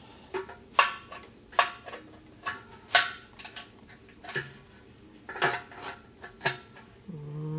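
A magnet pickup tool on a long metal rod clinking and scraping against the metal inside of an ESKA 7 hp outboard motor as it is fished around for a chain dropped in the tank opening. There are about nine sharp, irregular metallic clinks, some with a brief ring.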